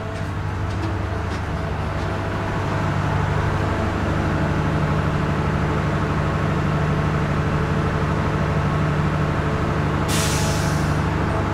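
Heavy vehicle's engine running steadily close by, growing a little louder about three seconds in, with a short hiss of air from its air brakes near the end.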